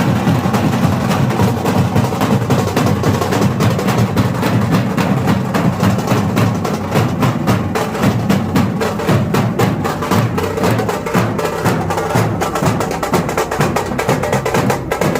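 Loud percussion music: fast, dense drumming with rapid sharp strokes.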